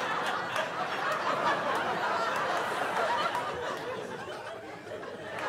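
Comedy club audience laughing at a punchline, a full room of laughter that dies down near the end.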